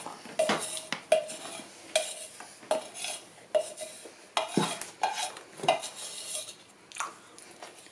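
Spoon scraping and knocking against the inside of a plastic measuring jug while whipped cream is scooped out into a springform pan, in a run of short strokes about one or two a second.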